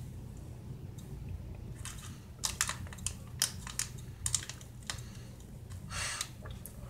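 Candy bar wrapper being handled and crinkled: a quick run of sharp crackles starting about two seconds in, then a short rustle near the end.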